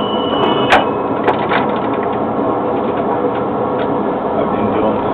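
Variolino tram pulling away and speeding up, heard from the driver's cab: a steady running noise, with a high steady tone that cuts off about a second in at a sharp click, followed by a couple of lighter clicks.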